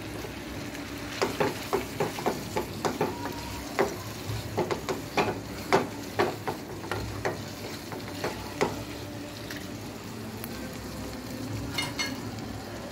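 A wooden spatula stirs chunks of tomato and potato in a non-stick pan over a steady sizzle. It knocks and scrapes against the pan in irregular sharp taps for several seconds, then the taps thin out and mostly the sizzle is left, with a few more taps near the end.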